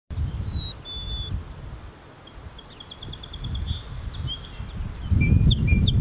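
Song sparrow singing: two clear introductory notes, then a fast trill of repeated notes, then more varied notes near the end. A low background rumble runs underneath and grows louder about five seconds in.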